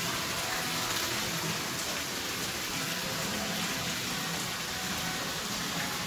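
Small garden sheet waterfall: a thin curtain of water falling from a wall spillway onto rocks, a steady, even splashing rush.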